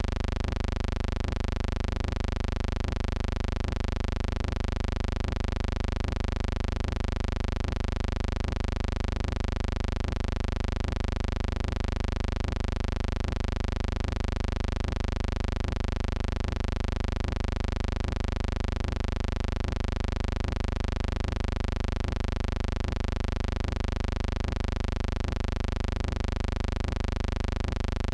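A steady, unchanging buzzing hum that does not vary, with no events in it.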